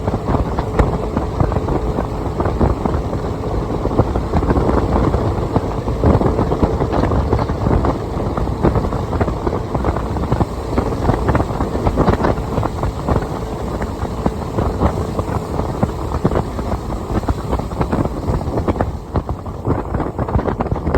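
A motor running steadily, with gusty wind buffeting the microphone.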